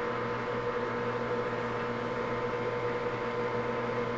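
Steady electrical hum made of a few fixed tones over a faint even hiss, unchanging throughout.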